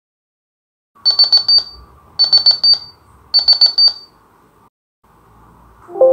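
A computer timer's alarm: three bursts of rapid high-pitched beeps, each burst under a second long and about a second apart, signalling that the timer has run out. A lower tone starts at the very end.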